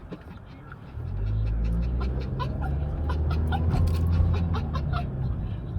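A dog whining in short, high squeaks over the low rumble of a moving car, which grows louder about a second in.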